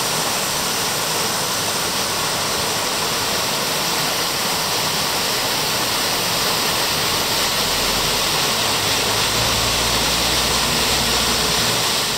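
Waterfall on the Sabando river rushing steadily as an even, loud hiss of falling water. A low rumble joins in about seven and a half seconds in.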